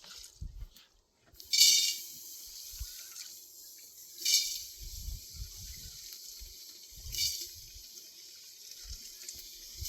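Water poured into a metal cooking pot (bhaddu) in three short splashes about three seconds apart, the pot ringing briefly with each, over a steady hiss.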